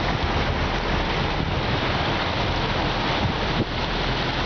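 A bus wading through deep floodwater: a steady rush of churned, sloshing water alongside, over the low steady drone of the bus engine.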